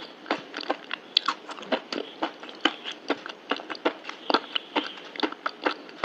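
Close-up crunchy chewing, a steady run of crisp crackles about three a second.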